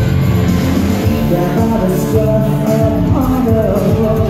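Rock band playing live, loud and heard from the audience: electric guitars, bass guitar and drums, with a singer's voice coming through about halfway.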